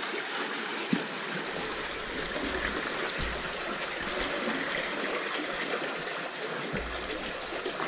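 Steady hiss of water trickling and flowing, with a few low thumps along the way.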